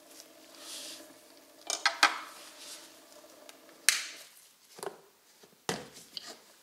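A run of sharp metallic clinks and knocks from small steel test parts being handled: a quick cluster about two seconds in, a loud single clink about four seconds in, and a few more near the end. A faint steady hum with several pitches runs underneath and stops about four seconds in.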